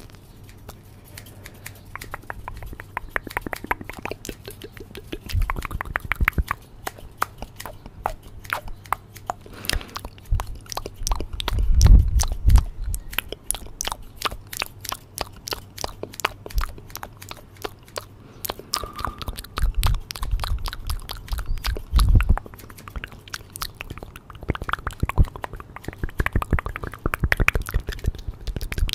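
Scissors snipping in the air right at a microphone: a long run of crisp, rapid snips. A few low thumps are mixed in, the loudest about twelve seconds in.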